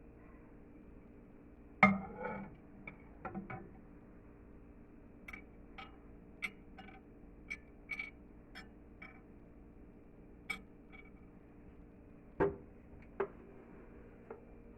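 Microwave oven running with a steady hum while Fryms snack pellets puff up inside, giving a scatter of small sharp pops. A few louder knocks come about two seconds in, again soon after, and near the end.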